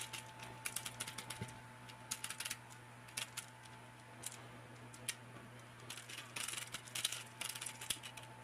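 Plastic Transformers action figure being handled: scattered light clicks and taps of plastic parts, some in quick little clusters, over a faint steady electrical hum.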